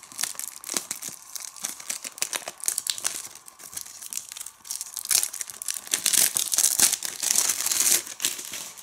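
Plastic shrink-wrap being torn and peeled off a Blu-ray case, crinkling and crackling all the way through and loudest in the second half.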